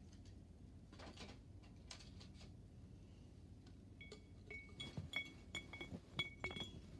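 Several light glass clinks in quick succession starting about four seconds in, each with a brief high ringing tone, after some faint handling noise.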